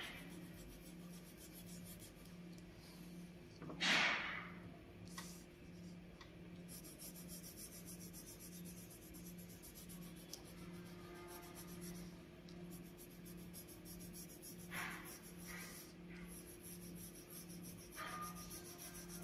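Coloured pencil and paper scratching and rubbing in a few short strokes, the loudest about four seconds in, over a faint steady low hum.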